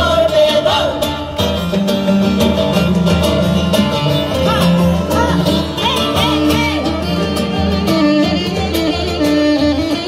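Live Kurdish folk music: a bağlama (long-necked saz) playing the melody, with a group of women singing and a steady percussion beat.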